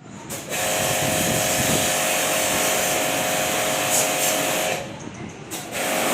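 Electric pressure-washer pump running with a steady whine and a loud hiss of spray, used for cleaning a window air conditioner. It stops for under a second near the end and then starts again.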